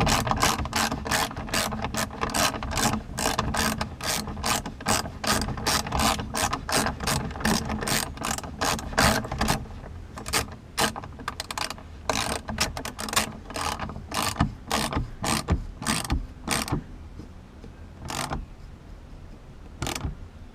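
Socket ratchet clicking in quick runs as a grab handle's mounting bolt is snugged up. The clicks come thick and fast at first, then thin out to a few single clicks near the end.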